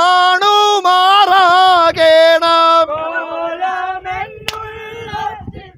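A group of voices singing vanchippattu, the Kerala boat song, in long held notes; about halfway through the singing becomes softer, over a low background rumble.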